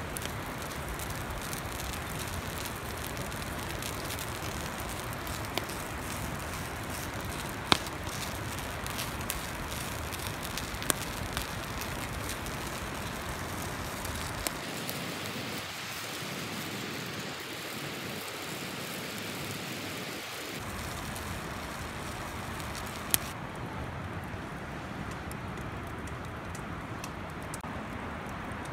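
Wood fire burning with a steady hiss and a few sharp crackling pops, the loudest about eight seconds in.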